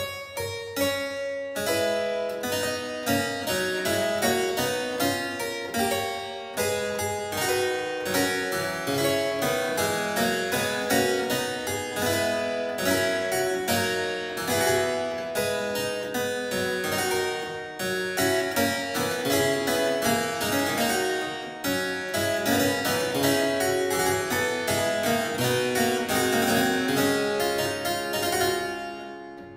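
Solo harpsichord playing a continuous stream of plucked notes, dying away near the end as the piece closes.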